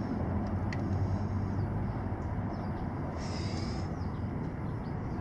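Steady low background rumble, with a brief hiss about three seconds in.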